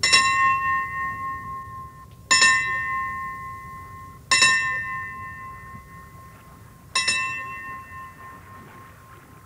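Brass ship's bell struck four times by a pull on its rope lanyard, each stroke left to ring and fade, rung at the hoisting of the ensign.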